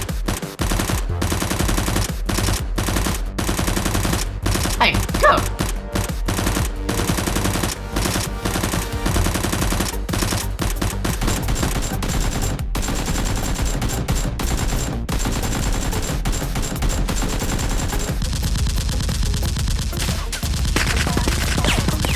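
Rapid gunfire, automatic bursts with short gaps, kept up throughout, as in an action-film gunfight. It is most likely dubbed-in firearm sound effects for the Nerf blasters, with a short shout now and then.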